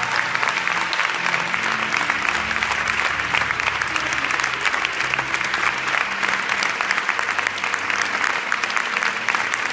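Audience applauding steadily, with soft background music of long held low notes underneath.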